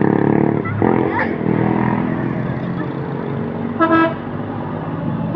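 Bus telolet horn sounding over a running vehicle, with a short, loud, bright horn note about four seconds in and another starting right at the end.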